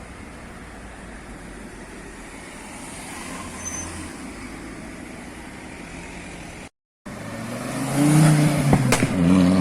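Car engine idling as a low, steady rumble; then, after a short break, a car engine runs much louder, its pitch climbing near the end, with a sharp click just before the end.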